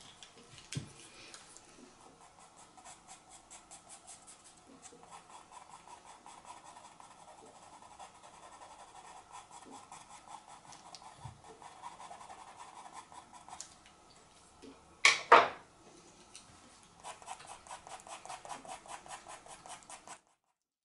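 Pastel pencil scratching on pastel paper in quick, regular short strokes, with a brief loud clatter about fifteen seconds in before the strokes start again.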